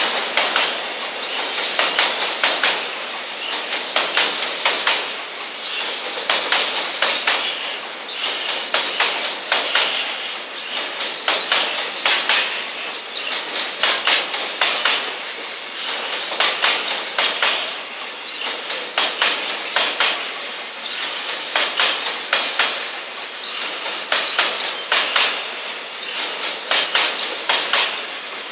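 Loaded container flat wagons of a JR Freight train rolling past at speed, their wheels clattering over rail joints in repeating clusters of clicks over a steady rumble.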